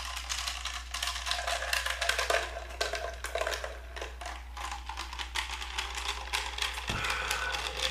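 Mini ice cubes rattling and clicking fast against the plastic tube of a Scientific Explorer Tornado Maker as its motor whirls the drink into a vortex, with a faint steady motor tone underneath; noisy. A knock near the end.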